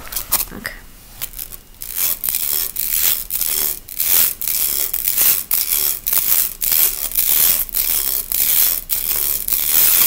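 Plastic rainbow slinky tipped back and forth between two hands, its coils clattering and slapping together: a few scattered clicks at first, then from about two seconds in a steady rhythm of loud swishing clatters, roughly two a second.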